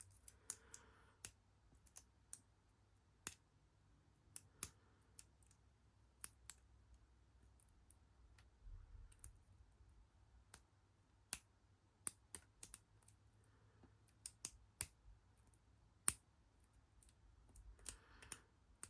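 Lock pick and tension wrench working the pins of a small padlock: sharp clicks and ticks at an irregular pace, a few to the second.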